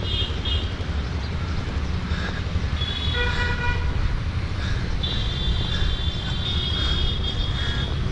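A vehicle horn toots briefly about three seconds in, over a steady low rumble. A high, thin steady tone holds for about three seconds in the second half.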